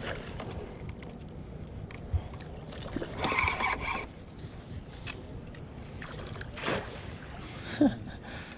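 Water sloshing and splashing around a small boat as a small salmon is played on a spinning rod close by. There is a sharp knock about two seconds in and a louder whirring stretch of about a second, three seconds in.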